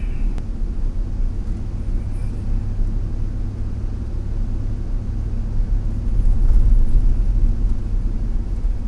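Car driving, heard from inside the cabin: a steady low rumble of engine and road noise, growing a little louder about six seconds in.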